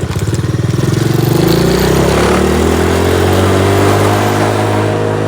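ATV engine idling with a pulsing beat, then revving up over about a second and a half and holding a steady, higher speed.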